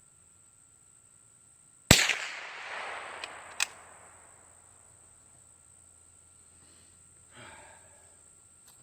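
A single rifle shot about two seconds in, its report dying away over a couple of seconds, followed by two sharp clicks.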